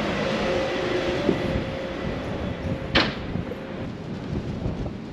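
Steady mechanical hum of the ferry Santoña's engines and ventilation heard inside the ship, with a sharp clack about three seconds in, after which the hum eases.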